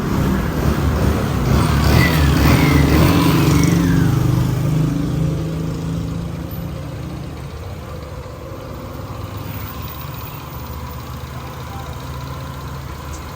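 Small single-cylinder scooter engine of a Honda Navi–style scooter running after repair. It revs up over the first few seconds, then drops back to a steady idle.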